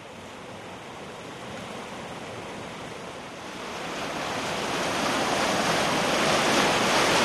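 Steady rushing of fast-flowing floodwater, fading in and growing louder over the first five seconds, then holding level.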